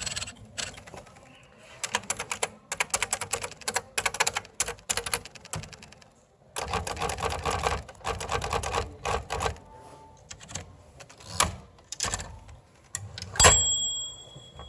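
Smith-Corona Electra 120 electric typewriter being typed on: quick runs of sharp key strikes, then a few scattered strikes. Near the end comes one loud strike that rings briefly.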